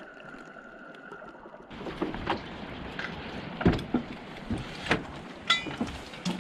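Muffled underwater hush with faint clicks, then about two seconds in a cut to open-air sound on a wooden jetty: a steady rush of wind and sea with scattered knocks and a short metallic clink.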